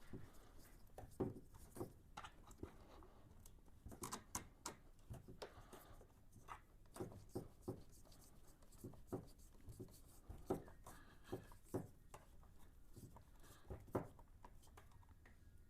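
Faint, irregular small clicks and scrapes of a screwdriver turning a bolt into a motorcycle battery terminal, metal on metal.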